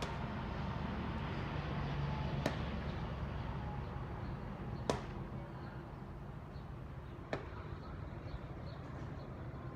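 Steady traffic noise with a low rumble. Three sharp clicks come evenly spaced about two and a half seconds apart.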